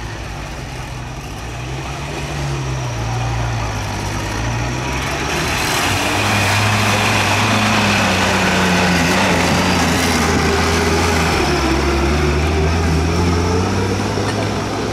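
Tractor engine running, its pitch wavering up and down, growing louder about five seconds in.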